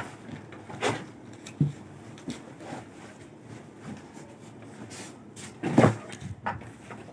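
Heavy embroidered cloth being handled and moved about, with a few rustles and knocks; the loudest rustle comes about six seconds in.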